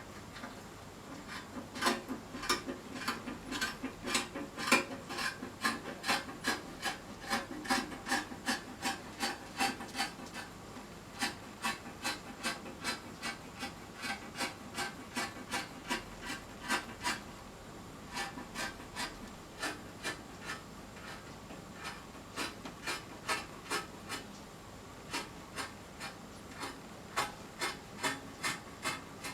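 Scissors cutting through folded stretch fabric: a steady run of snips, about two to three a second, with a few brief pauses.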